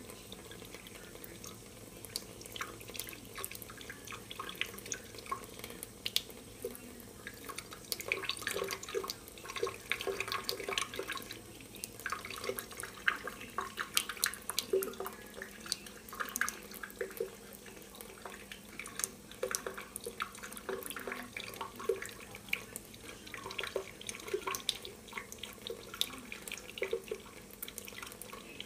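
A thin stream of water runs from a kitchen faucet into a stainless steel sink, splashing and dripping irregularly.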